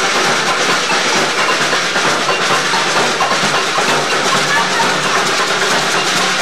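Loud, steady hubbub of a dense crowd, many voices talking at once with no clear words.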